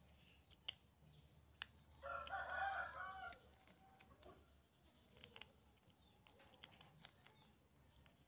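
A rooster crows once, about two seconds in, for about a second and a half. Around it, scattered faint clicks of a metal hook picking and scraping at a shell.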